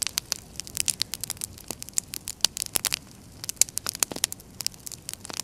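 Fire burning painted canvases and their wooden frames, crackling with irregular sharp pops several times a second, some louder snaps among them.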